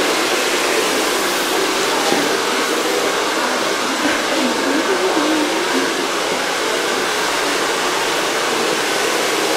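Hair dryer running with a steady rushing noise, with faint voices in the background.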